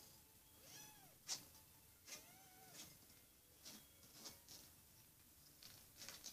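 Five-week-old kitten mewing twice: short, high, arched cries about a second in and again about two seconds in, among several sharp clicks and ticks.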